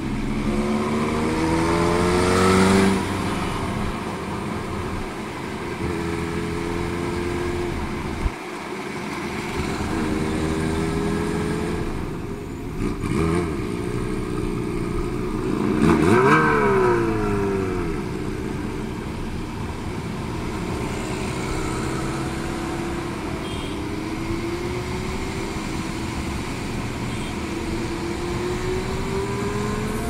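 Motorcycle engine heard from the rider's own bike while riding in traffic, its pitch climbing and dropping back again and again as it accelerates and shifts through the gears, over a steady rush of wind and road noise. The loudest rise comes about sixteen seconds in.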